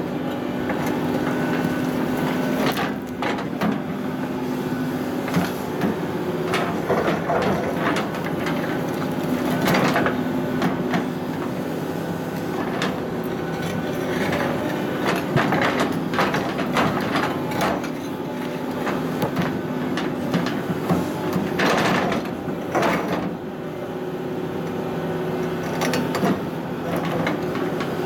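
Excavator's diesel engine running steadily while its ripper tooth digs into blasted granite, with irregular knocks, clanks and grinding of steel against rock.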